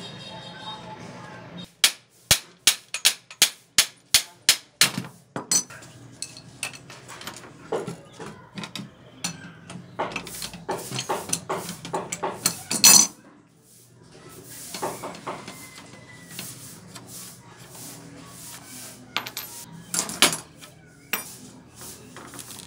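Hammer blows on a rusted steel bicycle frame, a quick even run of about a dozen strikes at roughly three a second. Then irregular metal clinks and knocks as tools and parts are worked loose, the loudest a single bang partway through.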